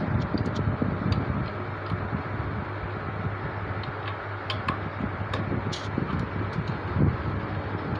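Scattered light clicks and taps from handling the CPU cooler fan and pushing its cable plug into the motherboard fan header, over a steady low background hum.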